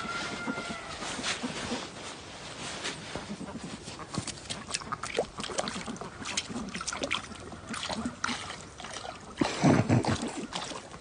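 Irregular light splashing and clicking from a bird working at the pond water, with a short, louder low call or grunt about ten seconds in.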